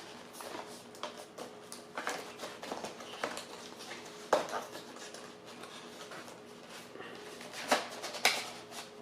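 Cardboard box and packaging being handled as the box is unpacked: scattered rustles, taps and clicks, with a few sharper knocks about four seconds in and near the end, over a faint steady hum.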